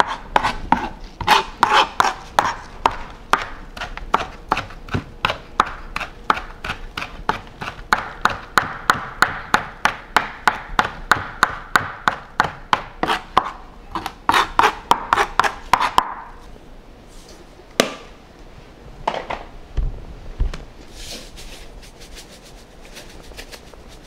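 Chef's knife mincing hot peppers on a plastic cutting board: rapid, even strokes, about three or four a second, that stop about two-thirds of the way through. A few scattered knocks follow, then a faint hiss of salt being sprinkled near the end.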